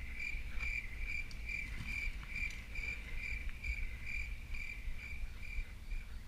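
Insect chirping in an even rhythm, about two short chirps a second, over a low rumble of wind on the microphone.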